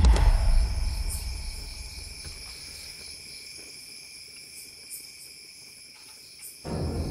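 Steady, high-pitched chorus of insects trilling. A sharp hit right at the start trails off in a low rumble over about two seconds, and a low sound cuts back in abruptly near the end.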